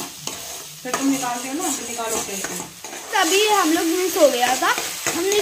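Chopped onion, capsicum and tomato sizzling in oil in a frying pan, stirred with a metal spoon that scrapes the pan. A voice talks over it, strongest in the second half.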